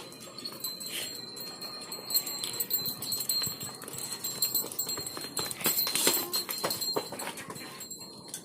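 Dairy cattle moving about, making irregular knocks and metallic clinks, with several sharper ones in the middle of the stretch; a thin steady high tone runs underneath.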